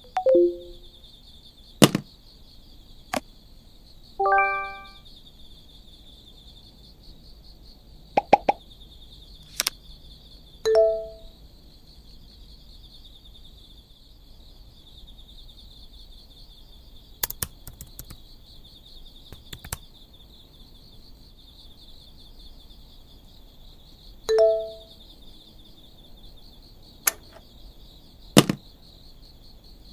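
A string of short sound effects: sharp clicks and brief two-note plop-like blips, a few seconds apart, over a steady high-pitched fluttering whine.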